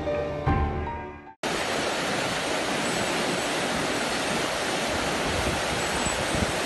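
Background music fades out in the first second or so, then after a brief gap the steady rush of whitewater in a rocky mountain stream takes over.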